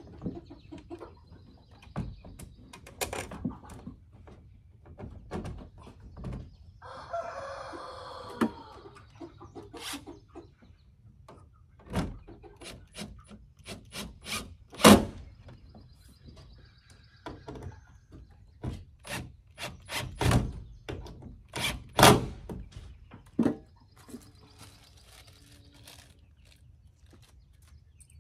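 A rooster crows once, about a quarter of the way in. Around it comes a string of sharp knocks and clicks from fitting a plastic automatic coop door against the wooden coop wall and screwing it in place, the loudest knocks about halfway through and again in the last third.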